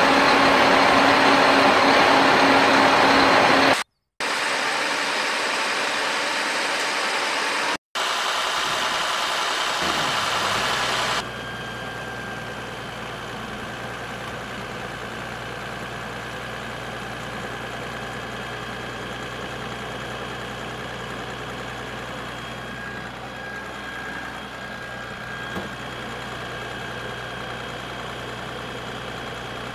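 A steady engine-like running sound, broken by two brief dropouts around 4 and 8 seconds in, then turning into a quieter, lower steady hum from about 11 seconds in.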